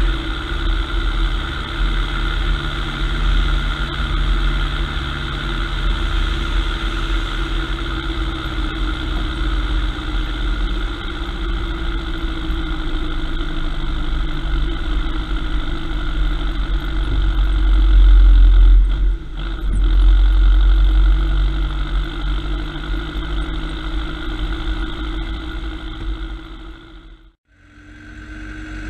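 A vehicle engine running steadily with a heavy low rumble. It gets louder for a few seconds past the middle, then fades and cuts out briefly near the end.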